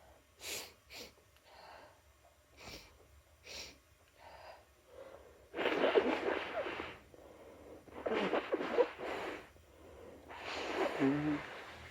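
A person with a head cold sniffling several times in quick short bursts, then sneezing three times into a wet towel, each sneeze a long noisy burst, the last with a brief voiced cry.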